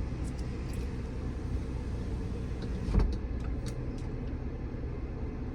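Steady low rumble of a parked car's engine idling, heard from inside the cabin, with one thump about three seconds in and a few faint clicks.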